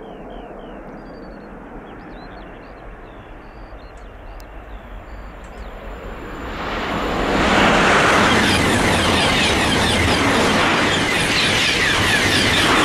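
Coupled TGV Duplex and TGV Réseau high-speed trainsets approaching and passing: a rush of wheel and air noise that swells from about halfway in to a loud, steady roar of the train going by.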